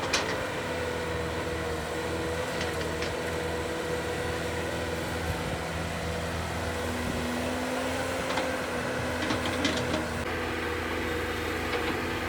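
Sumitomo S265EA excavator's diesel engine running steadily with a held whine, broken by several short metallic clanks, the sharpest right at the start and a cluster near the end.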